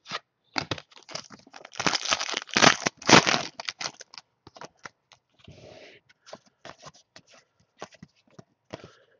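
A trading-card pack wrapper being torn open and crinkled, with sharp crackles that are densest about two to three seconds in, then scattered clicks and rustles as the cards are handled.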